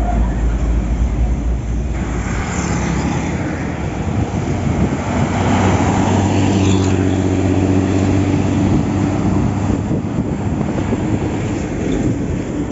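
Large intercity coach's diesel engine running as the bus pulls away and passes close by, a deep, steady drone.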